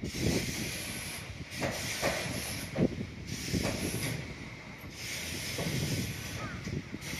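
Outdoor ambient noise: a steady hiss with uneven low rumbling swells and a few brief louder bumps.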